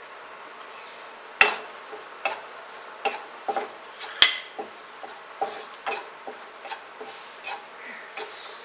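Wooden spatula stirring and scraping a thick spice masala around a nonstick kadai, knocking against the pan about twice a second. Two louder knocks come about a second and a half in and about four seconds in.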